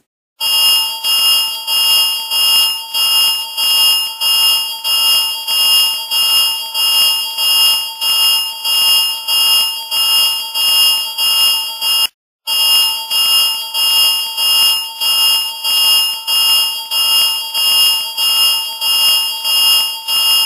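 Electronic alarm sound effect pulsing about one and a half times a second with a shrill, steady pitch, cutting out briefly about twelve seconds in before starting again.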